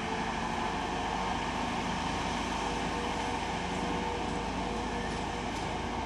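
Diesel engine of a 15-inch-gauge miniature railway locomotive running steadily, with a constant hum.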